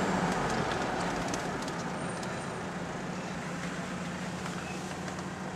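Car engine and road noise heard from inside the cabin while driving in city traffic: a steady low engine hum under an even tyre rumble, getting a little quieter over the first two seconds.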